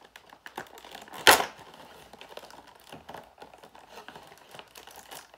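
Tape being picked at and peeled off a toy figure's box, with the packaging crinkling and small clicks and rustles. A short, loud rip about a second in.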